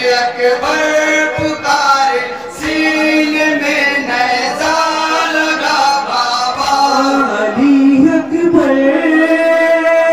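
Male reciters singing a Muharram noha, a mourning lament, into microphones. The voices hold long notes that waver and slide in pitch.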